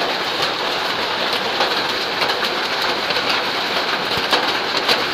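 Heavy rain mixed with small hail falling on muddy ground and puddles: a steady hiss with many sharp ticks of single strikes.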